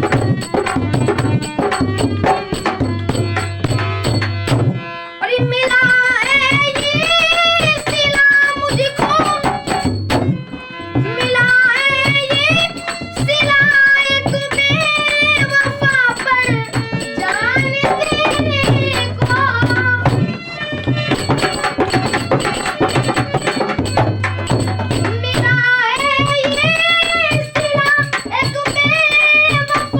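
Ghazal song: a male voice sings a wavering, ornamented melody over a steady tabla rhythm and accompanying instruments, with short instrumental passages between the sung lines, one at the start and one shortly after the middle.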